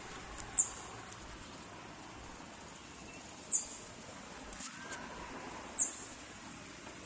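A small bird's high, thin chirp, heard three times, about every two and a half seconds, each call a quick downward sweep, over steady outdoor background noise.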